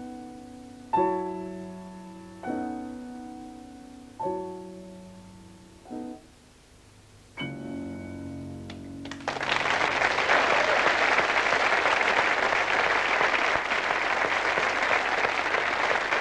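Solo piano playing the closing chords of a song, five chords each struck and left to fade. About nine seconds in, an audience breaks into loud, steady applause.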